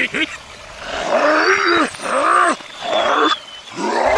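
Animal-like cries: several long calls about a second apart, each rising and falling in pitch, with a harsh, rough edge.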